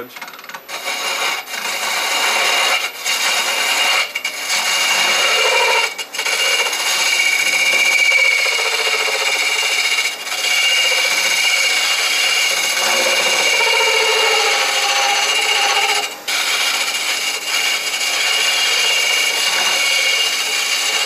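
A turning tool cutting into a wooden yoyo blank spinning on a wood lathe: a steady scraping hiss with a high whine running through it, broken by several brief pauses as the tool comes off the wood.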